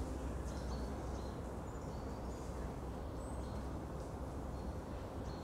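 Small songbirds giving short, thin, high chirps every second or so over a steady low rumble of distant traffic.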